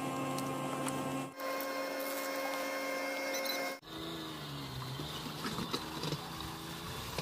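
Engine hum in three spliced pieces during a boat retrieval at a slipway. The first two pieces hold a steady pitch. In the last piece the pitch dips and rises, with a few clicks, as a boat on its trailer is hauled out of the water.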